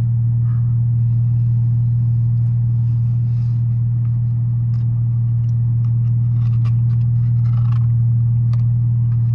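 Steady low drone of a car's idling engine heard inside the cabin, with faint chewing and a few small clicks over it.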